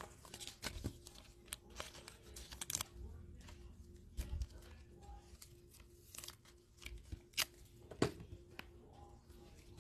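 Topps Chrome baseball cards being handled one at a time: a string of light clicks and slides of card stock as cards are lifted, shown and set down, the sharpest clicks near the end. A faint steady hum runs underneath.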